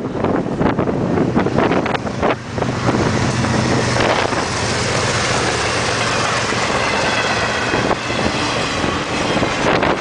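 BNSF diesel freight locomotives passing close at speed, their engines giving a steady low drone over the loud rush of the train, with an intermodal trailer train following. Wind buffets the microphone hard in the first couple of seconds.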